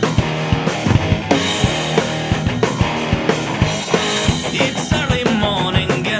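Rock band playing an instrumental passage: a drum kit keeps a busy beat under guitar.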